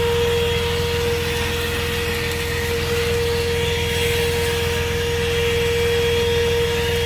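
THISWORX 12-volt handheld car vacuum running steadily: a constant motor whine over the rush of air. Underneath is the low, steady rumble of the truck's idling engine, left running for better suction.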